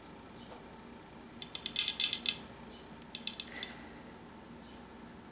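Light, sharp clicks and taps of plastic containers while thick lotion is poured from a spouted container into a plastic jar: a quick run of about ten clicks a second or so in, then a shorter run of clicks past the middle.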